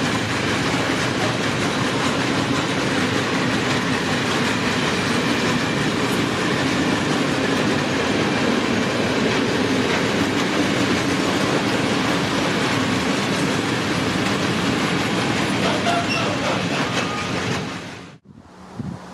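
Freight train of empty Fals hopper wagons rolling past at speed: a steady, loud rumble of wheels on the rails. It cuts off abruptly about eighteen seconds in, leaving a much quieter breezy outdoor background.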